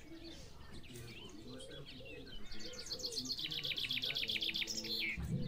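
Birds chirping and singing, with a fast trill of rapidly repeated high notes, about ten a second, through the second half. A low, deeper sound starts just before the end.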